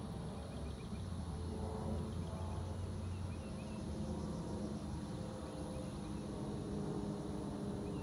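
Rural outdoor ambience: a steady low drone from a distant engine, with faint short bird chirps now and then.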